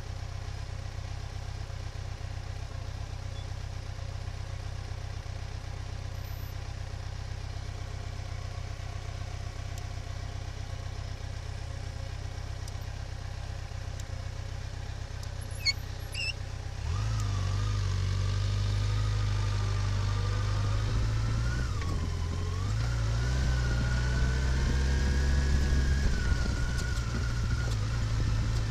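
Vehicle engine running with a steady low drone. About 17 seconds in it gets louder, and a whining tone rises and falls in pitch.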